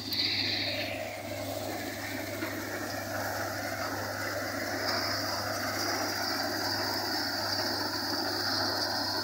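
Tractor-driven Vishwakarma threshing machine running steadily while mustard stalks are fed into it, its drum and shakers making a continuous mechanical clatter over the tractor engine's steady hum.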